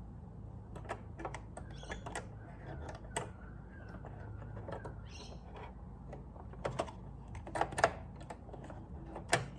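Irregular small clicks and taps of parts being handled and fitted back into a Brother sewing machine during reassembly after cleaning, with a few louder clicks near the end.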